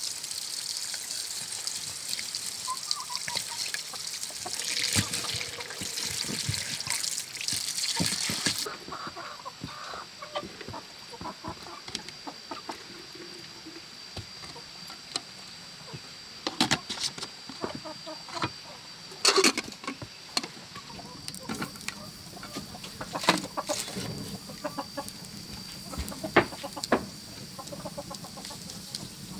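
Chickens clucking, with scattered short knocks and clicks. A steady hiss fills the first third and cuts off suddenly.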